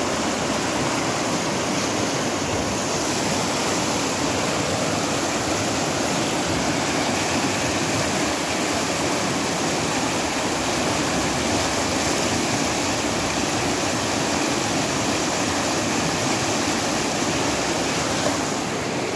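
River rapids: white water rushing over and around boulders, a steady, unbroken wash of noise.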